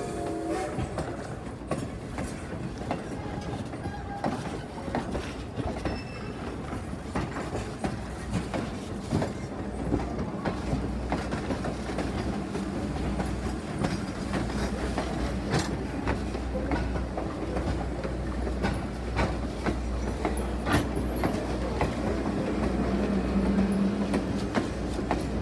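Steel wheels of passenger coaches clicking over the rail joints as a train rolls past, with a steady rumble underneath. The tail of the steam locomotive's whistle cuts off in the first half second.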